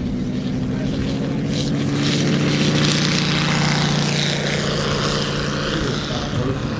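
Moki 250 radial engine and three-blade scale propeller of a large radio-controlled F4F Wildcat model running at take-off power. A steady engine drone with propeller noise swells as the plane passes, about three seconds in, then eases a little as it climbs away.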